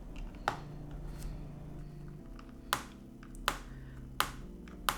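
Sharp, separate clicks from a laptop's plastic bottom case and its screws as they are undone with a small Phillips screwdriver. There are five clicks, the last four about every three-quarters of a second. The clicking worries the person working on it, who fears the case may be stressed.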